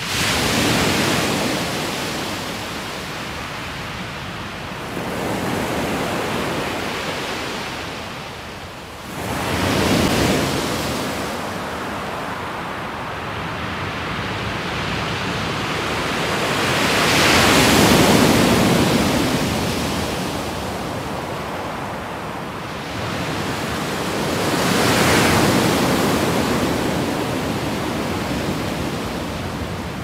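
Small waves breaking and washing up a pebble beach. Each wave is a rush of surf that swells and fades, about five of them, the loudest a little past halfway.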